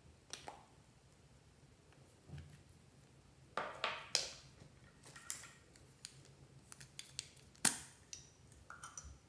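Irregular sharp clicks and light taps of small plastic cosmetic containers being handled: a nail polish bottle and a pair of lip balm tubes. The loudest click comes about three-quarters of the way through.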